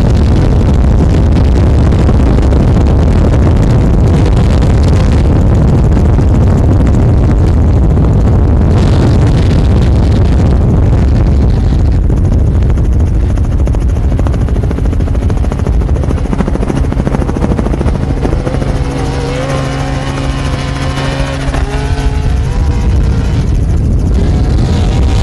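Off-road race truck engine running hard at speed, loud and steady with a deep rumble. Past the middle, its pitch wavers up and down with throttle changes.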